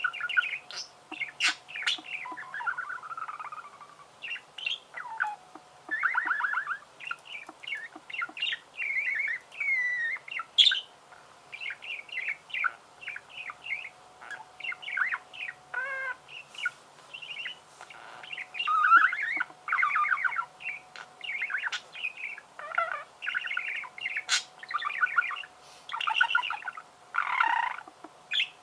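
Budgerigars warbling and chattering without a break: a fast, run-on stream of chirps, trills and short clicks.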